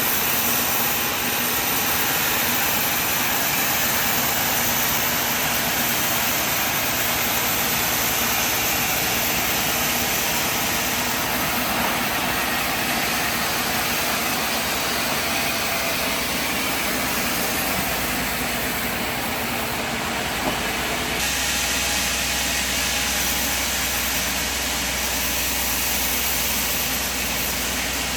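Sawmill machine running with a steady mechanical noise. Its sound changes abruptly about three quarters of the way through.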